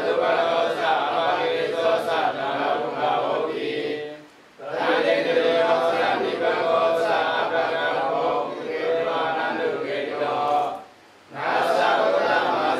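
Buddhist monks chanting Pali verses in unison, a low group of men's voices in long phrases broken by short pauses for breath about four and eleven seconds in.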